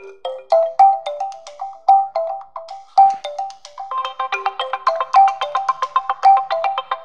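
Realme C11 phone ringtone playing: a melody of short, quick notes that starts at once, growing fuller with more notes layered in about four seconds in.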